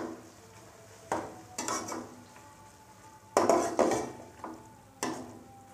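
A spatula scraping and knocking around a metal pan, stirring a thick frying onion-tomato masala, in about half a dozen uneven strokes. Each stroke leaves a short metallic ring from the pan, over a low sizzle of oil.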